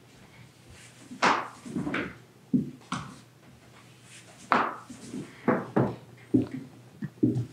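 Rolling pin rolling out a sheet of baklava dough: about a dozen short strokes and knocks at an irregular pace.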